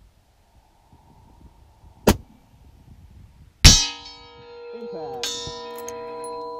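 A single rifle shot from a Ruger Precision Rifle in 300 PRC, then about a second and a half later a loud clang of the bullet hitting a steel IPSC target plate, which rings on with several steady tones for about three seconds before cutting off suddenly.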